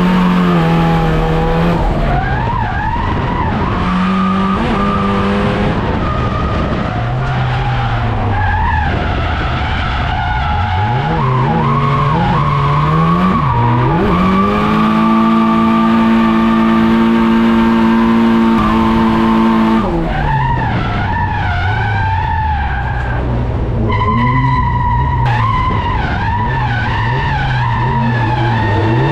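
Drift car engine heard from inside the cabin, revving up and down hard through a drift run as the tyres skid and squeal. About halfway through, the revs are held steady for several seconds before falling and swinging again.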